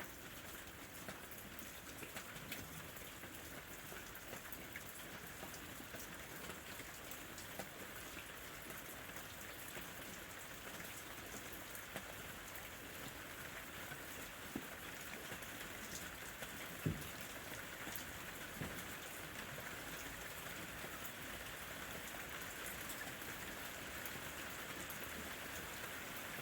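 Steady rain falling on a surface, an even hiss dotted with many small drop ticks, and one sharper, louder drop about two-thirds of the way through.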